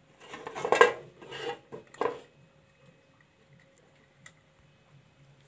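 Metal lid of a large cooking pot being set down and shifted on the pot: a few metallic clatters with short ringing, the loudest about a second in and the last about two seconds in.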